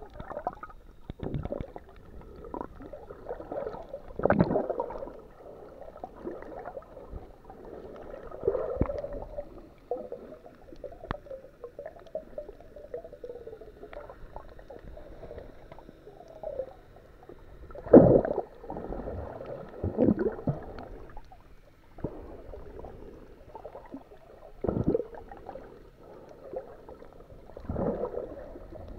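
Water gurgling and sloshing around a submerged camera, with irregular louder surges every few seconds.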